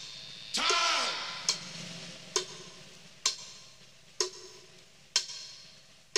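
Sharp ticks about once a second, coming slightly further apart as they go on. About half a second in, a pitched tone sweeps up and then down and fades away over the next second or two.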